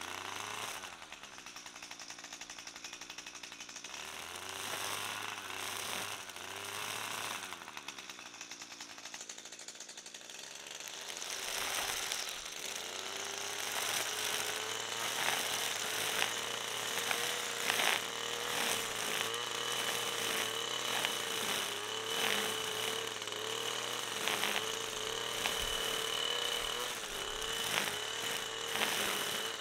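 String trimmer spinning its orange nylon line through thick grass: a steady whine whose pitch wavers as the line loads up in the grass, stepping up about halfway through. In the second half come frequent sharp ticks over a thin high whine.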